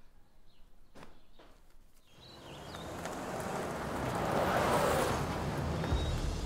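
Footsteps: a few sharp steps in the first two seconds, then a swelling wash of noise that builds to a peak about four to five seconds in and holds.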